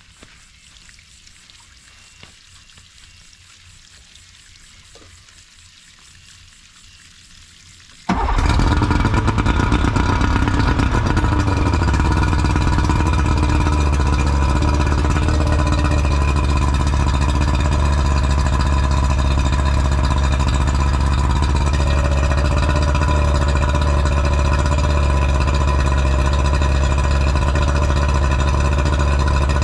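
A faint hiss of water from the hose and flushing muffs, then about eight seconds in an outboard motor comes in suddenly and runs steadily at idle, its pitch settling over the first few seconds. The motor is run on muffs to test a newly fitted OEM water pump impeller.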